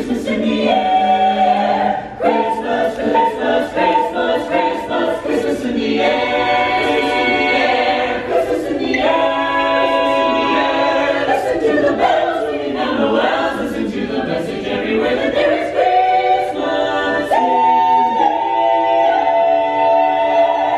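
A cappella ensemble of men's and women's voices singing in close harmony, in phrases of held chords, ending on a long sustained chord near the end.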